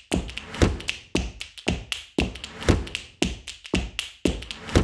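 Background music with a steady percussive beat, about two sharp hits a second.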